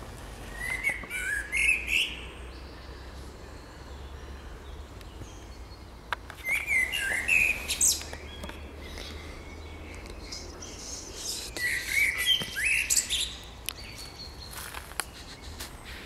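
Male common blackbird singing three separate song phrases about five seconds apart, each a low warbled phrase ending in higher twittering notes.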